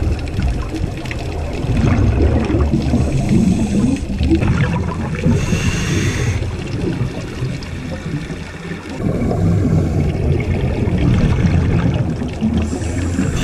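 Scuba breathing heard through an underwater camera housing: a muffled low rumble of exhaled bubbles in two long stretches, with a brief hiss of the regulator on the in-breath about five seconds in and again near the end.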